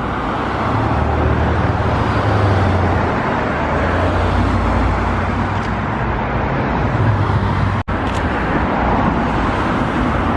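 Steady noise of road traffic passing close by, with a low hum, broken by a momentary dropout about eight seconds in.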